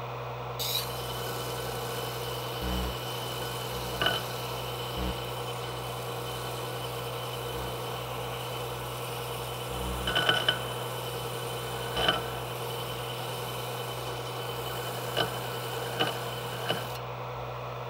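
Electric disc sander running with a steady hum while a steel knife blade is pressed flat against its abrasive disc; the hiss of the sanding starts about a second in and stops shortly before the end, with a few light clicks along the way. The blade is being sanded to take out a spot left by the belt grinder.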